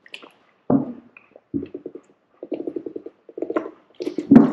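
A person gulping water from a plastic gallon jug: several swallows in quick succession, the loudest near the end.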